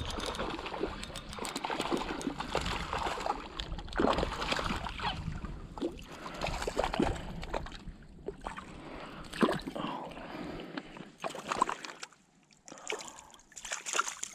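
Irregular small splashes and trickling water at the lake surface, with scattered knocks.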